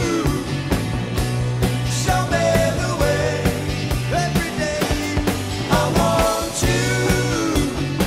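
Background song: a voice singing over a steady drum beat and bass.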